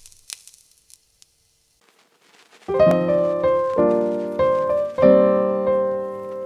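A couple of faint clicks, then piano music begins about two and a half seconds in, with a few slow chords struck and left to ring.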